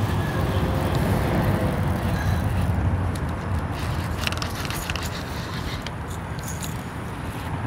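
Wind buffeting the microphone: a steady low rumble that eases a little in the second half. A few faint clicks about three to four and a half seconds in come from the spinning reel as the lure is wound back in.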